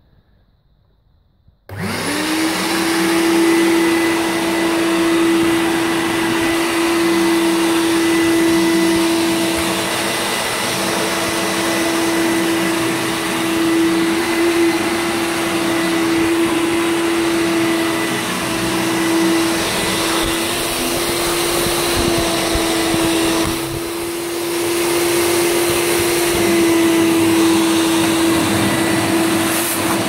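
A 1987 Alfatec wet & dry vacuum cleaner's 750 W motor switched on about two seconds in, spinning up almost at once to a loud, steady whine over a rush of air as it sucks over the floor. The sound dips briefly near the end, then steadies again.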